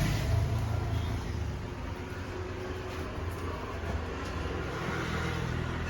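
Steady low rumble of a motor vehicle engine with street noise.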